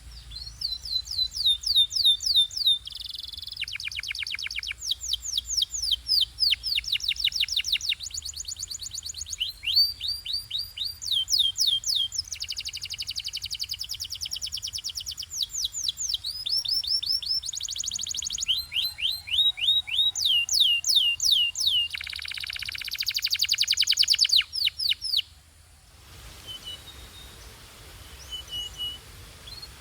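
Canary singing: fast trills of repeated, falling whistled notes that switch to a new phrase every second or two, with dense buzzing rolls about four seconds in and again around twenty-two seconds. The song turns softer and sparser near the end.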